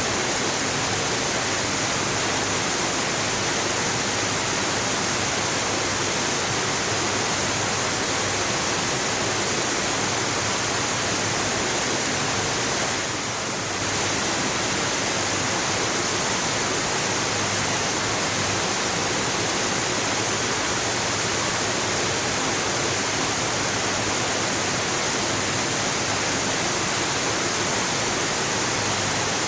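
Waterfall: steady rush of falling water, an even hiss-like noise with a brief slight dip about thirteen seconds in.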